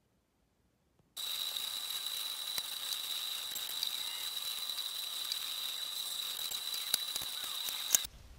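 Cricut cutting machine running as it cuts feather shapes from walnut veneer: a steady high whine with scattered clicks, starting about a second in and cutting off suddenly near the end.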